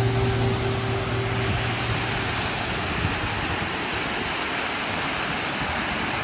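Steady rush of a waterfall, an even hiss of falling water, with the last notes of background music fading out in the first two seconds.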